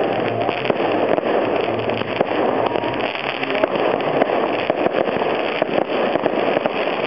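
Fireworks display firing continuously: many launches, bursts and crackles overlapping so thickly that they blend into one steady din.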